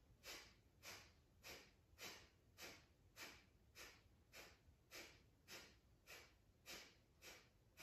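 Breath of fire (Kapalbhati): a steady run of short, sharp exhales pushed out through the nose by the belly, a little under two a second, faint.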